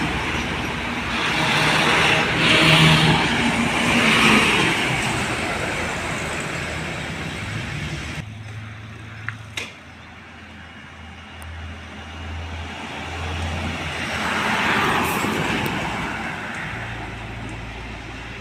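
Trucks passing on a road, engine and tyre noise swelling and fading. About eight seconds in the sound drops suddenly, two sharp clicks follow, and another vehicle passes later on.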